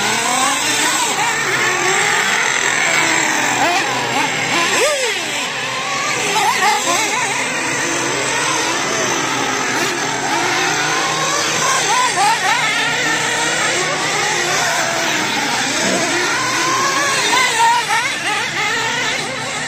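Several radio-controlled dirt oval race cars running laps together, their motors overlapping and rising and falling in pitch as they speed up and slow for the turns.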